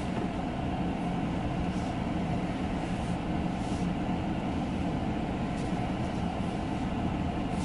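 Steady hum and rumble inside the cabin of a Kia K3 driving slowly: engine and tyre noise.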